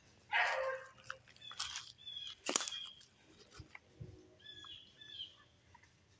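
Woodland sounds: a rustle near the start, a sharp snap about two and a half seconds in, and short bird chirps in the second half.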